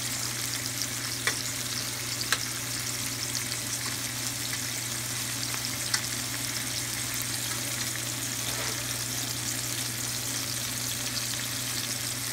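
Beef liver, onions, tomato and a serrano pepper sizzling steadily in olive oil in a frying pan, over a steady low hum. A few sharp metal clicks of a fork against the cookware come about one, two and six seconds in.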